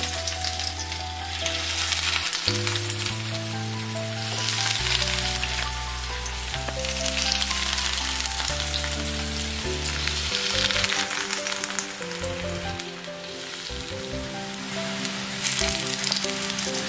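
Hot oil sizzling steadily as breadcrumb-coated noodle cutlets shallow-fry in a frying pan, under instrumental background music.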